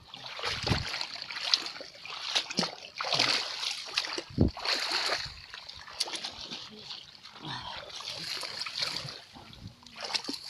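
Splashing and sloshing in shallow swamp water, in uneven bursts, with two dull low thumps about a second and about four and a half seconds in.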